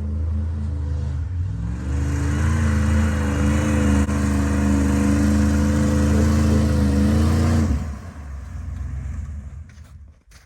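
A motor vehicle engine running, rising in pitch about two seconds in and holding steady, then cutting off abruptly near the end, followed by a few faint knocks.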